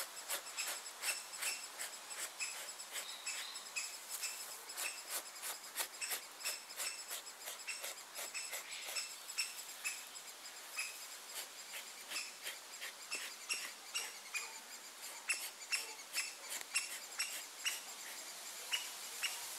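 Knife scraping a wet animal hide in quick repeated strokes, a few a second, as the hide is cleaned of membrane remnants before tanning.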